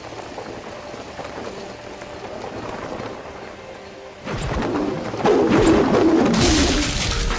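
A large bird's cries as a fight-scene sound effect. They grow suddenly louder about four seconds in with a warbling call, then a loud rushing swell toward the end.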